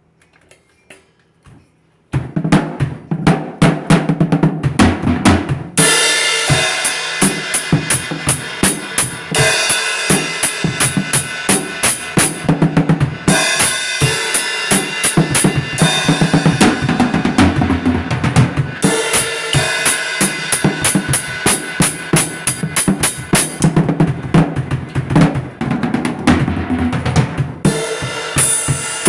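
Music built on a drum kit beat, with bass drum and snare hits repeating steadily, starting suddenly about two seconds in after a near-quiet opening.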